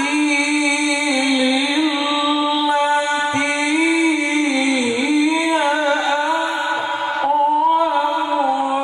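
A man's voice reciting the Qur'an in the melodic tilawah style into a microphone, holding long notes with wavering, ornamented turns in pitch and short breaks between phrases.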